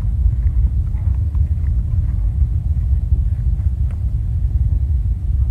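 Wind buffeting the microphone: a loud low rumble that wavers in level, with a few faint clicks over it.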